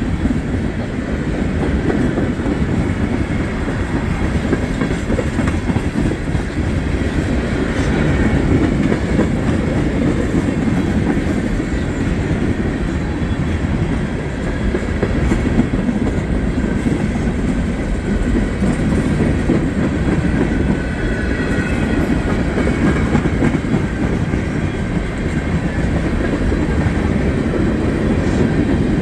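Norfolk Southern mixed freight train cars rolling past close by: a loud, steady rumble of wheels on the rails.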